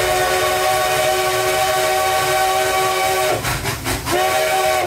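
Steam locomotive whistle blowing a held chord of several notes at once. One long blast cuts off about three seconds in, and a second blast starts about a second later.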